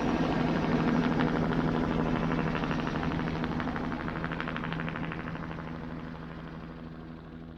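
Helicopter in flight: rapid, even rotor-blade chop over a steady engine hum, fading steadily away.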